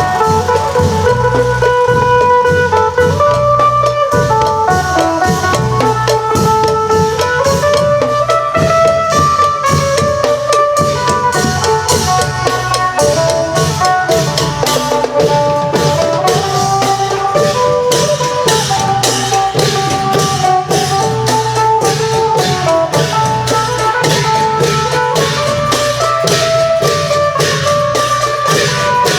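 Isan long-drum (klong yao) ensemble playing with a phin (Isan plucked lute): a stepping plucked melody over a steady driving drum rhythm with regular high clashing strokes.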